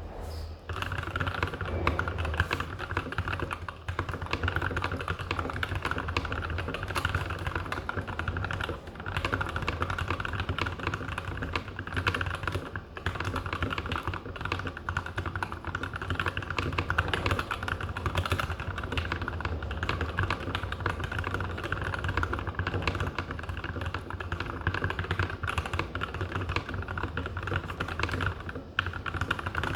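Continuous fast typing on a GK64 mechanical keyboard with lubed Tealios v2 linear switches (milky Gateron top housings, Krytox 205g0) and lubed plate-mount GMK stabilizers, a dense run of keystrokes with brief pauses now and then.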